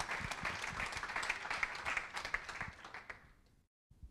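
Audience applause, many hands clapping, dying away about three seconds in.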